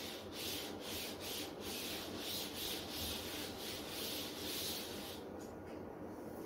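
Repeated rubbing strokes against a surface, about two or three a second, running into a steadier rub that stops about five seconds in.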